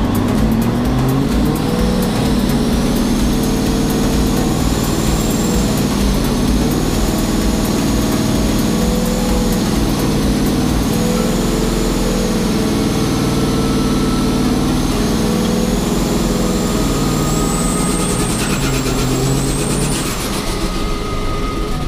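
Scania drag-racing truck's diesel engine running and being revved, its pitch rising and falling, with a high whine over it that climbs near the end and then drops off.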